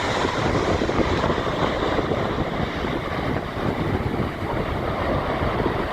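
Boeing 737 jet airliner coming in low to land, its engines a steady rush of jet noise, with wind buffeting the microphone.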